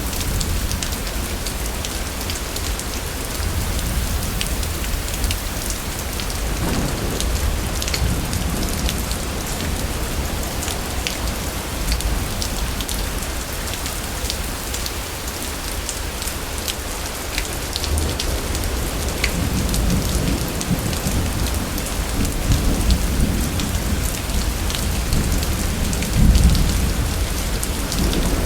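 Steady heavy rain with many individual drops ticking, under low rolling thunder that swells about a quarter of the way in and again through the second half, loudest near the end.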